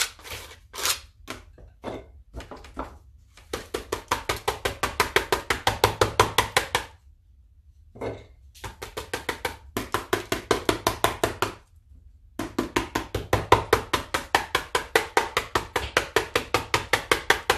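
Quick rhythmic dabbing on a paper journal page, about five taps a second, in three runs with short pauses between them, as white paint is worked over the old spread to cover it.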